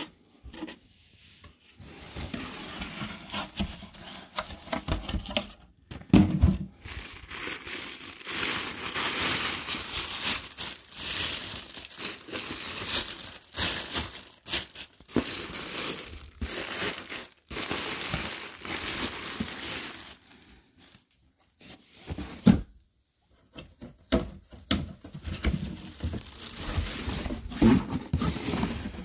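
Hands unpacking a cardboard shipping box: white tissue paper and plastic air-cushion packing rustling and crinkling, with scattered knocks against the cardboard and a short lull a little past two-thirds of the way through.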